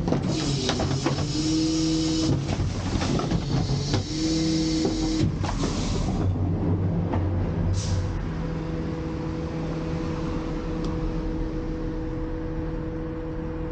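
Autocar/McNeilus rear-end loader garbage truck running steadily at the curb, its engine and hydraulics giving a steady hum. Through about the first six seconds, bags of garbage are tossed into the rear hopper with bursts of rustling and thuds; after that the truck runs on alone, with a short hiss near eight seconds.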